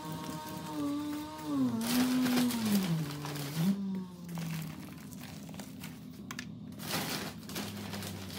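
Loose potting soil pouring from a plastic pot into black plastic seed-starting trays, rustling and crinkling in two main pours about two seconds in and again near seven seconds. Under it, a wavering pitched tone glides up and down and fades about four seconds in, leaving a lower steady hum.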